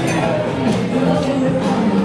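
Music playing loudly, with held notes over a light beat.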